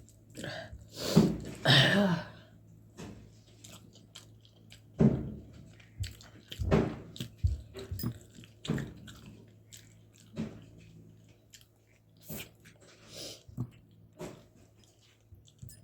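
A person eating close to the microphone: irregular chewing and wet mouth smacks, with pauses between bites.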